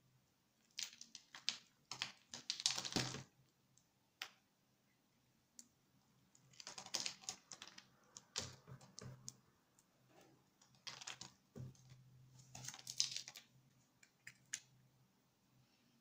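A snap-off utility knife blade cutting through a grid-scored bar of dry soap, small cubes cracking off and dropping onto the table. It comes as several runs of quick, crisp crackling with short pauses between them.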